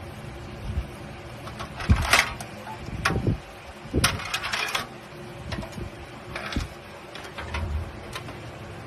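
Handling noises from a PC case being examined: irregular clicks and knocks, a few sharper ones around two to five seconds in, with light rustling between them.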